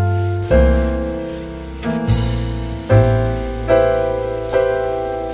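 Background piano music: a new chord is struck about every second, each one ringing and fading away.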